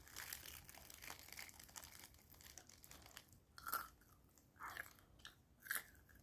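Fried chicken being bitten and chewed close to the microphone: faint crisp crunching, with a few louder crunches in the second half.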